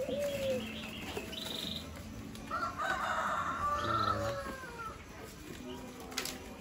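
A rooster crowing once: a long call starting about two and a half seconds in and lasting about a second and a half. Light clicks and rattles of plastic crates being handled under it.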